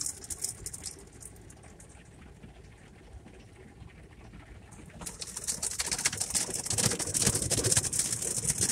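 Automatic car wash brushes and water spray working over the car, heard from inside the cabin: a hiss of spray that eases off after the first second, then comes back loud about five seconds in, with the cloth brushes slapping and rumbling across the windshield.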